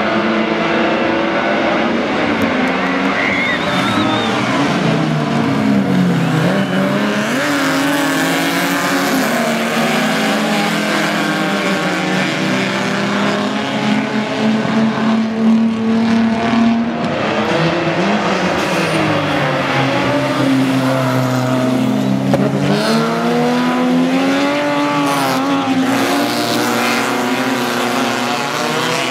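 Rear-wheel-drive rallycross cars racing, several engines running hard with their pitch repeatedly climbing and falling as they accelerate and back off.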